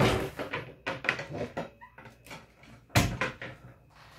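Off-camera kitchen clatter as a pan lid is fetched: a burst of knocks and rattles at the start, then a single sharp knock about three seconds in.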